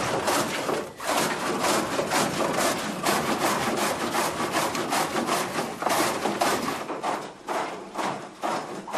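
Laundry scrubbed by hand on a wooden washboard, wet cloth rubbed back and forth over the ribs in quick, rhythmic strokes.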